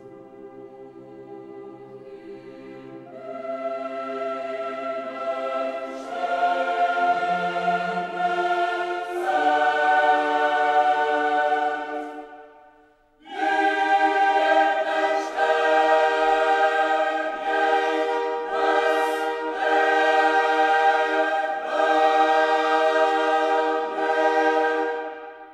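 Background music: a choir singing held chords. It swells up over the first few seconds, drops out for a moment about halfway, then comes back in and fades at the end.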